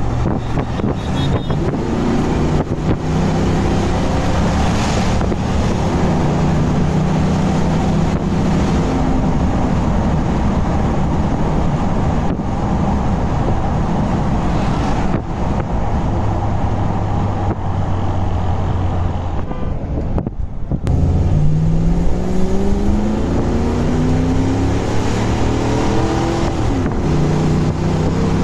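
Corvette LS3 V8 swapped into a Land Rover Defender, heard from inside the cab while driving. The engine note rises as it pulls, holds steady for a while, dips sharply about twenty seconds in as the throttle lifts, then climbs twice more on louder pulls.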